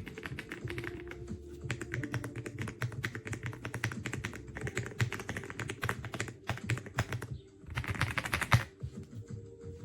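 Typing on an EPOMAKER x Aula F75 gasket-mounted mechanical keyboard: a fast, steady run of keystrokes, a brief pause about seven and a half seconds in, then a dense flurry of keypresses.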